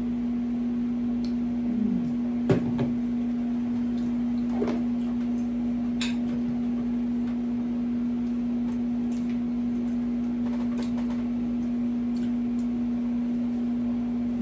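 A steady low electrical hum runs under a few short clicks and smacks of eating at the table, the sharpest about two and a half seconds in.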